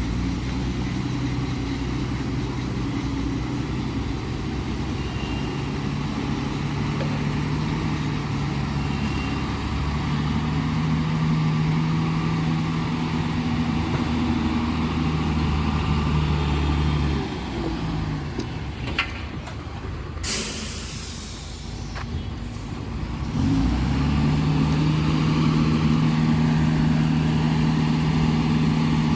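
Heavy diesel engines running steadily under load; the engine note drops away just past the middle. A short, loud air-brake hiss follows a few seconds later, then the engine picks up again and runs on steadily.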